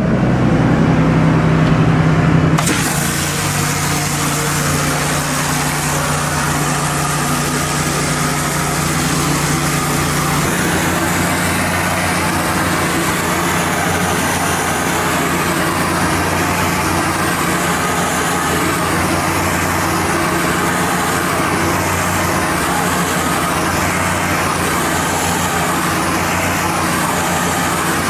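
Hot-water pressure washer running steadily; about two and a half seconds in, the spray opens up into a loud, steady hiss of water blasting greasy concrete, swelling and fading as the wand sweeps back and forth.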